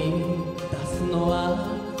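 Instrumental enka music, an orchestral passage between sung lines, with sustained held notes.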